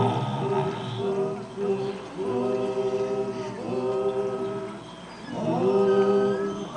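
A choir singing a cappella in long held phrases, swelling again near the end. It is a film soundtrack played on a television.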